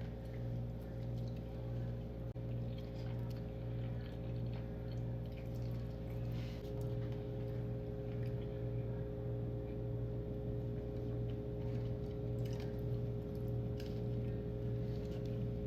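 Close-miked chewing and wet mouth sounds of someone eating, over a steady low electrical hum.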